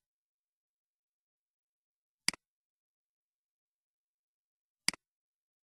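Two computer mouse clicks, about two and a half seconds apart, each a quick press and release, against dead silence.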